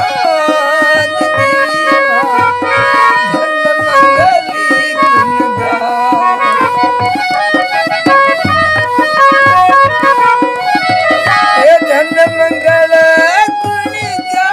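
Traditional Indian devotional folk music: a steady hand-drum rhythm under a melody of held notes that bend and glide between pitches.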